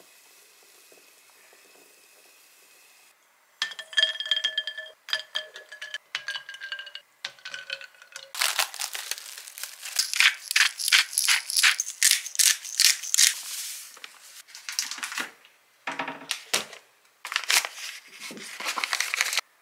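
Kitchen handling sounds: a few ringing clinks, then a long run of rapid crinkling and rustling, and near the end a paper flour bag crinkling as it is handled.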